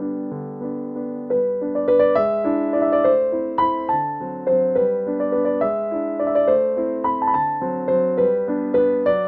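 Background piano music: soft held chords that give way about a second in to a louder, busier run of notes.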